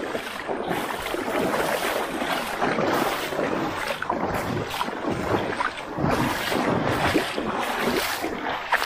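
Shallow river water sloshing and splashing without a break as people wade through it.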